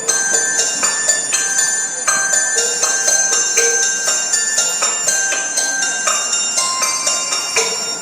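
Recorded dance music carried by bright ringing bell tones, struck in a quick, steady run of notes.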